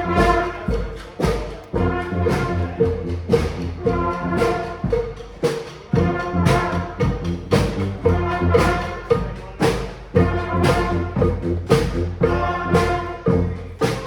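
Brass street band playing a tune: horns holding chords over a bass line, with frequent drum hits.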